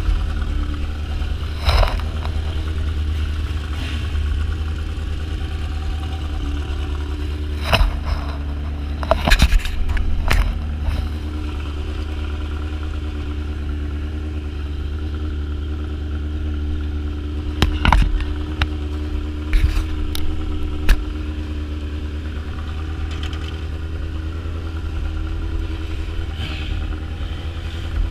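Sport motorcycle engine idling steadily. A few sharp clicks and clatters sound over it, in one cluster about a third of the way in and another about two-thirds in.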